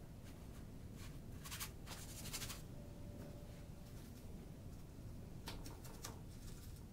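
Quiet room tone with a paintbrush scratching over the painting surface in short, dry strokes, once about one and a half seconds in and again near the end.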